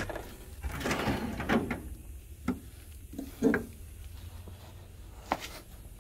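Hands rummaging in a steel tool chest drawer: a clatter as the drawer slides, then a few separate knocks and clinks of metal tools being moved about.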